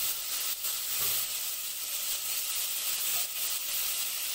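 Chopped drumsticks, green beans and carrots sizzling in hot oil with onion and tomato in a cooking pot, a steady frying hiss.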